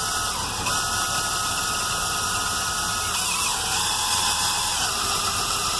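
Power drill running steadily as its bit cuts slowly into stainless steel, with a thin whine from the bit that drops a little in pitch about three seconds in. The stainless is heating quickly under the bit.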